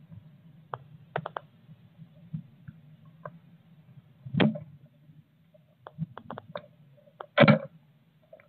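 Blue tit moving about in a nest box: scattered clicks and taps of its bill and feet against the nest, with two brief rustles of feathers and nest lining, a little after four seconds and about seven and a half seconds in.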